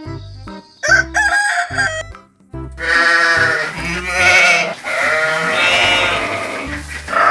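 Rooster crowing, a long drawn-out cock-a-doodle-doo starting about three seconds in, over background music with a steady beat.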